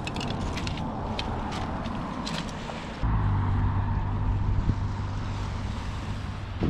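Car driving: steady road and engine noise, with a deeper, louder rumble setting in suddenly about three seconds in.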